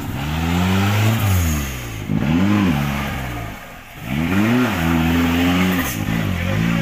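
Suzuki Katana 4x4's turbocharged 1600cc engine revving hard under load in deep mud, its pitch rising and falling several times as the throttle is worked.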